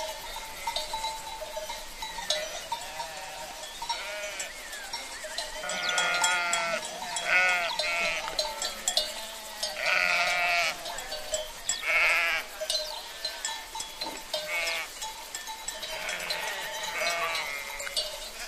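Flock of sheep bleating: a run of wavering, quavering calls from several animals, some overlapping. The loudest come in the middle.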